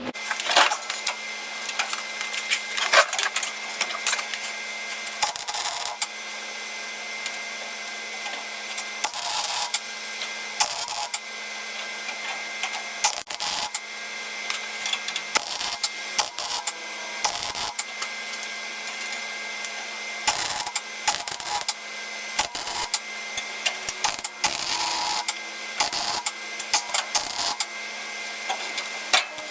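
Welder tacking and plug-welding a new sheet-steel inner rocker panel into place, the arc crackling and buzzing in short irregular bursts over a steady hum.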